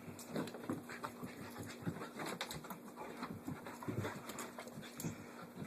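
Puppy dashing about, its paws making quick, irregular knocks and scuffs, with panting.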